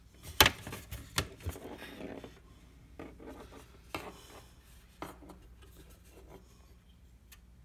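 Hard plastic clicks, knocks and rubbing as the compass/thermometer display module is pulled out of a 2002 Ford E-350 overhead console housing and handled. The sharpest click comes about half a second in, with a few more scattered knocks after, dying down near the end.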